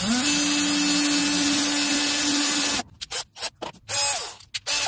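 Cordless drill spinning up and boring a pilot hole into a pine batten, running steadily for nearly three seconds before stopping. A quick series of short knocks and a brief whirr follows near the end.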